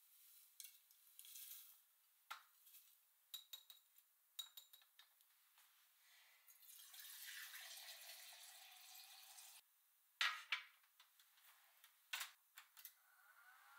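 Quiet kitchen sounds: light clinks of glassware, then a kitchen tap running for about three seconds over a glass measuring cup in a stainless sink. Near the end come a few sharp clacks.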